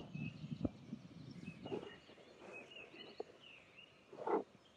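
Faint, thin, high bird calls: short wavering notes that come and go, over soft rustling and handling noise, with a brief louder rustle near the end.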